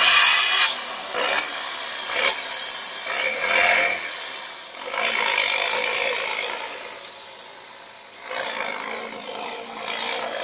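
A loaded heavy truck's diesel engine pulling hard as the truck drives away across a dirt yard. The rough engine noise comes in uneven surges and fades with distance, then swells again briefly near the end.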